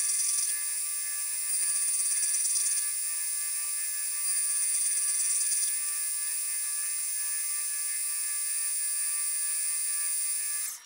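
Boring bar chattering on a light finish cut inside a heat-treated 4140 steel hub on a PM 1440TL lathe: a steady high-pitched squeal made of several tones, which swells twice and stops abruptly near the end. The chatter is slight.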